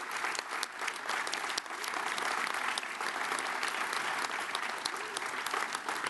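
Crowd applauding: many hands clapping steadily, with no break.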